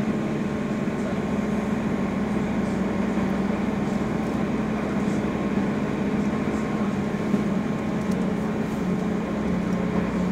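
Steady engine drone and road noise heard from inside a moving vehicle's cabin, a constant low hum that holds even throughout.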